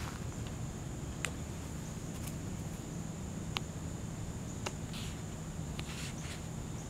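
Outdoor ambience with insects, likely crickets, making a steady high-pitched drone over a low steady hum, with a few faint sharp ticks scattered through.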